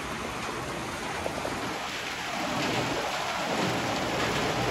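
Heavy rain with hail falling, a steady dense hiss that grows a little louder after about two seconds.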